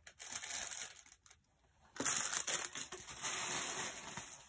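Thin plastic packaging crinkling as it is handled, in two spells: a short one at the start and a longer, louder one from about two seconds in.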